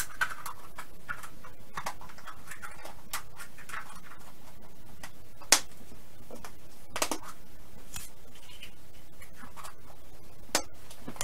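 Hinged plastic Easter eggs being handled, opened and snapped shut: scattered sharp plastic clicks, the loudest about five and a half seconds in, with light handling noise between.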